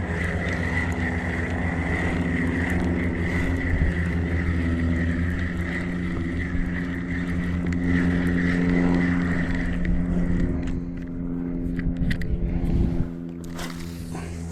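A motor running steadily with an even, pitched hum that drops away sharply about 13 seconds in.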